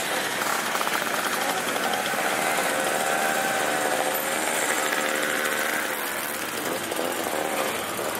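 A column of mopeds and motorcycles riding past, many small engines buzzing at once, their pitches rising and falling as the riders throttle and pass.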